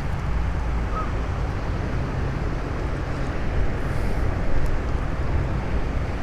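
Strong wind buffeting the microphone: a steady low rumble that rises and falls with the gusts.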